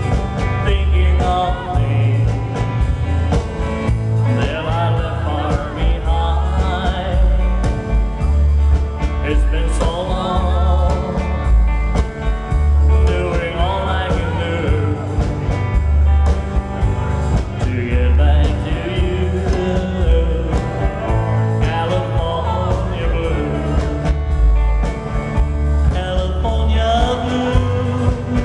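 Live music: a man singing while playing an archtop guitar, over a deep bass line.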